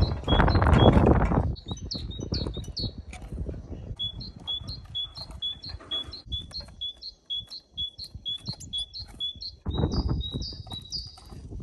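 Small songbirds at a feeder, sparrows and tits, chirping in a quick run of short, high, repeated notes, about two a second. A low rumbling noise covers the first second and a half and comes back about ten seconds in.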